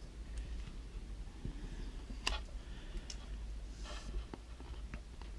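Fidget Cube packaging being handled: a few faint, sharp clicks and taps spread out, with a brief soft rustle.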